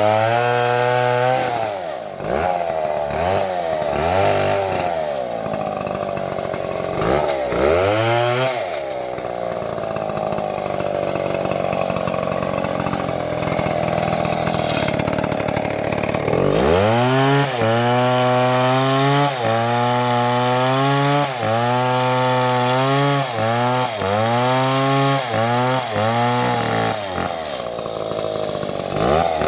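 Two-stroke Stihl chainsaw engine revved up and down several times, then held at high speed for several seconds as it cuts into the wood. About 16 seconds in it drops to a lower speed, with short surges about once a second, and revs up again near the end.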